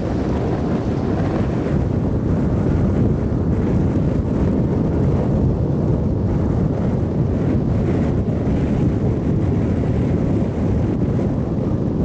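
Strong wind buffeting the microphone: a steady, loud, low rumble with no letup.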